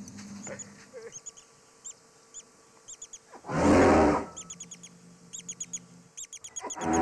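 Small birds chirping in quick runs of short notes, broken twice by a loud, rough, half-second blast from the sparring African elephants.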